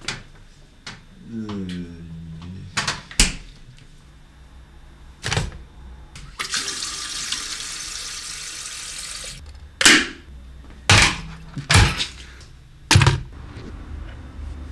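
Kitchen tap water running into a plastic electric kettle for about three seconds, filling it. Several sharp knocks and clunks of kitchen things being handled come before and after, the loudest in a quick run near the end.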